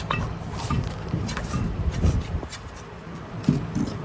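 Irregular metal clanks and knocks of tools and wheel parts during a truck-style tire change, over a steady low hum.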